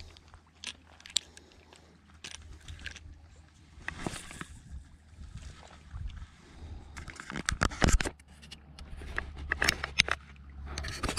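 Scattered clicks and scrapes of a spinning reel and rod being handled, with a louder cluster of clicks about seven to eight seconds in, over a low steady rumble.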